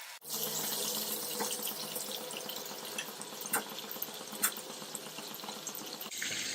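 Marinated chicken pieces frying in hot sunflower oil: a steady sizzle with a few sharp pops of spattering oil.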